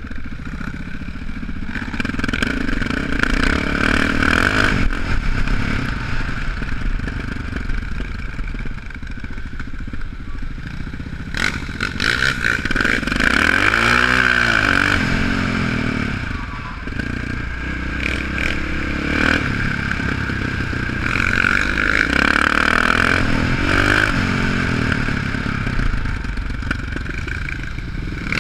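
Single-cylinder supermoto motorcycle being ridden, heard from the rider's helmet: the engine revs up and down through turns and straights, with wind rushing over the microphone. About halfway through the revs climb and fall back in one long sweep.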